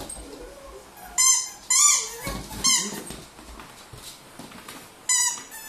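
A dog's squeaky toy squeaked four times as the dog bites it: short, shrill squeals, three in quick succession about a second in and one more near the end.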